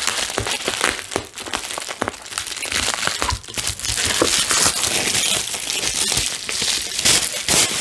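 Bubble wrap crinkling and crackling as a boxed album is pulled out of its bubble-wrap sleeve by hand.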